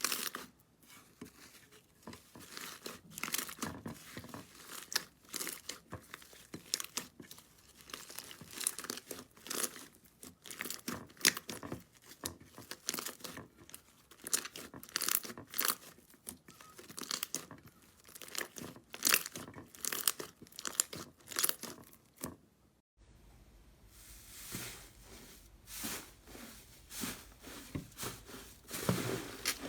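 Slime being squeezed and stretched by hand, giving dense crackling pops and crunches. About two-thirds of the way through, the sound cuts to a new clip with a faint steady hum underneath.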